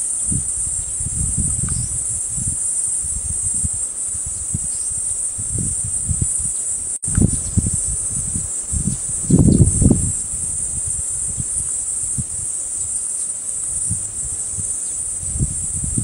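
A steady, high-pitched insect chorus with uneven low rustling and dull thumps beneath it, the thumps loudest about nine to ten seconds in. The sound drops out for an instant about seven seconds in.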